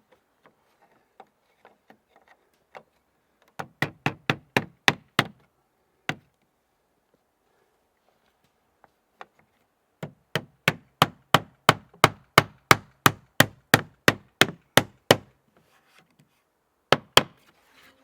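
Hammer blows driving nails into oak shingles. First comes a quick run of about nine evenly spaced blows, then a single blow, then a longer steady run of about seventeen, and two more near the end.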